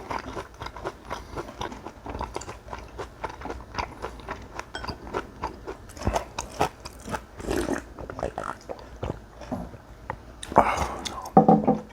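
Close-miked chewing and biting, with many quick crisp crunches and wet mouth sounds: a person eating a mouthful of cockle bibimbap and young-radish kimchi. It grows louder near the end.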